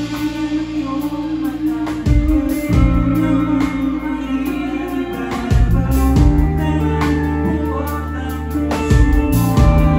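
Live rock band playing a song: guitars over bass guitar and drum kit, with the bass notes changing every couple of seconds.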